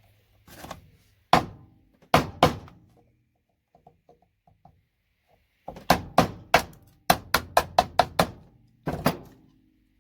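Sharp knocks of a chisel being driven into the plastic housing of an RJ45 ethernet connector to free its gold-plated pins. There are a few separate strikes, then a quick run of about a dozen, and one more near the end.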